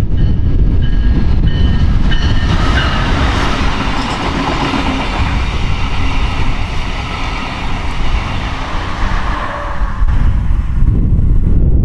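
Brightline passenger train passing at speed: a rush of wheel and rail noise builds from about two seconds in, holds, then fades near the end. A short high tone repeats about twice a second over the first two or three seconds.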